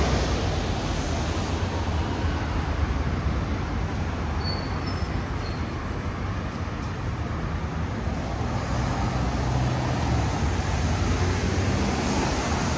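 Road traffic on a city street: a double-decker bus and cars driving past, with a steady low engine rumble under tyre noise.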